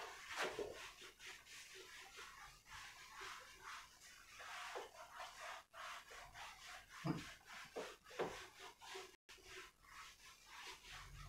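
A whiteboard eraser wipes marker writing off a whiteboard: a faint scrubbing of repeated, uneven strokes.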